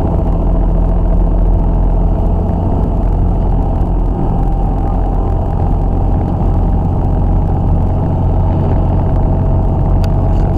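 Semi truck's diesel engine and road noise heard from inside the cab while cruising at steady speed: an even, unchanging low drone.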